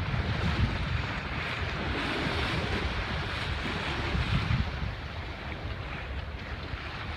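Wind buffeting the microphone in uneven gusts over the steady rush of water along a sailboat's hull.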